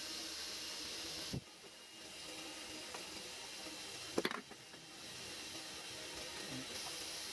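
Steady hiss with small knocks of metal parts being handled: a car horn's metal base plate and contact assembly turned over in the hands, with a light knock about a second in and a sharper click about four seconds in.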